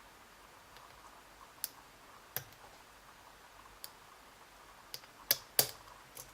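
Scattered sharp clicks from a lock pick working the pins of an Abus E60 padlock under very light tension: pins setting or dropping back in the cylinder. About seven irregular clicks, the two loudest close together near the end.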